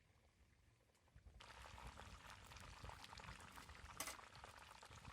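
Food starts sizzling in hot fat in a pan about a second and a half in, a steady dense crackling hiss with one sharper pop near the end.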